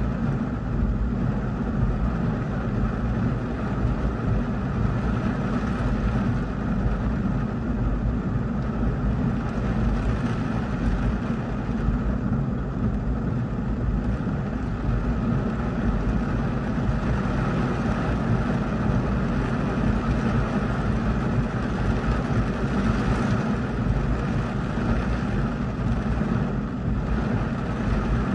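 Heavy rain falling on a car's roof and windshield, heard from inside the car as a steady hiss over a low, even rumble.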